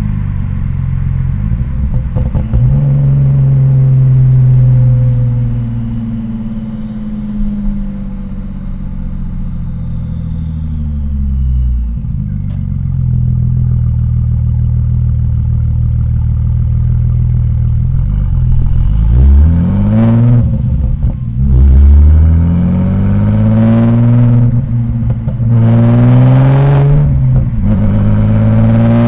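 Audi S4 B5's modified 2.7-litre twin-turbo V6 driving. The engine note is steady at first and the revs fall away about twelve seconds in. In the second half there are several short bursts of throttle, each with the revs climbing and a turbo whistle rising and falling above the engine.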